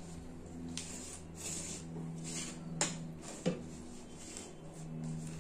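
Quiet eating sounds at a table: fingers mixing rice on a plate and a spoon working in a plastic bowl, with two sharp clicks about three seconds in, over a steady low hum.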